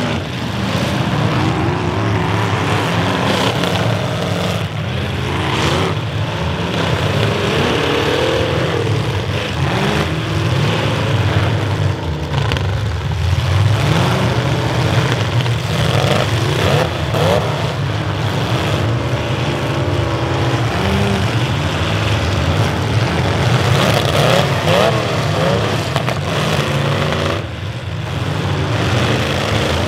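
Several demolition derby cars' engines running and revving together, pitch rising and falling as they accelerate, with a few sharp crunches of cars hitting one another.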